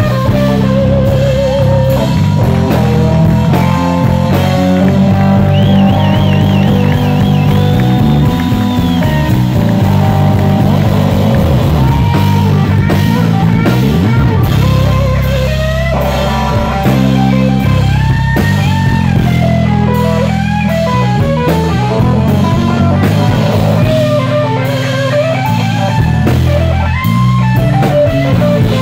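Live band playing loudly: a Telecaster-style electric guitar takes a lead solo, with string bends and wide vibrato, over bass guitar and drums.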